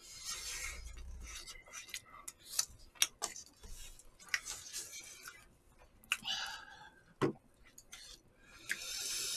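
Chopsticks and spoons clicking and tapping against disposable food containers while eating, in scattered sharp ticks.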